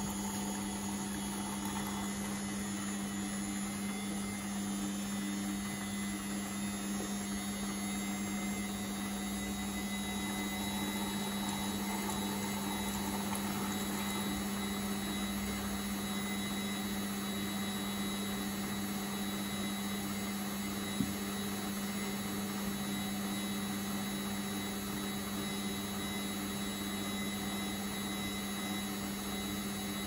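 Indesit 6 kg front-loading washing machine on its 1000 rpm spin with water in the drum, running at a steady speed with an even motor hum. A single brief click about twenty-one seconds in.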